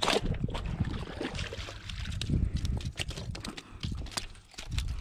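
Footsteps scrambling over loose rocks: irregular clacks and knocks of stones shifting and striking each other, over a low rumble.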